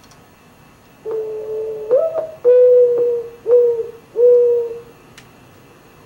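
Recorded mourning dove song. A long low coo slides up at its end and is followed by three steady coos.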